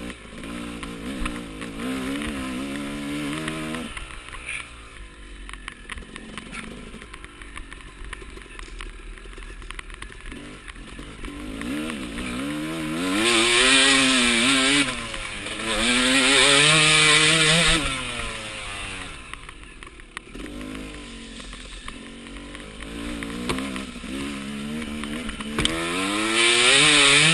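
Enduro dirt bike engine heard close up from on board, revving up and down as the throttle is worked on a rough climb. It runs quieter at low revs through the middle, with loud bursts of full throttle about halfway through and again near the end.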